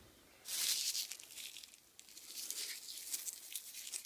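Dried hop cones being rubbed and crushed between the fingers, giving a dry crinkling rustle: a strong burst about half a second in, then uneven crackling from about two seconds on.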